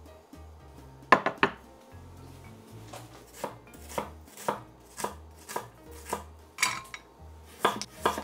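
Knife chopping food on a cutting board: a quick run of strokes about a second in, then steady strokes about two a second, bunching up near the end.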